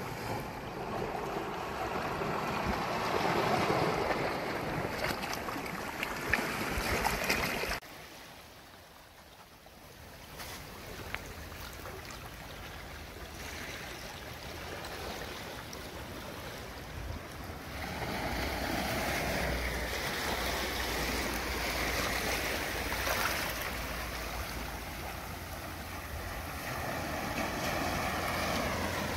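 Shallow seawater washing over reef rocks at low tide, a steady rushing noise. It drops away abruptly about eight seconds in and builds up again later.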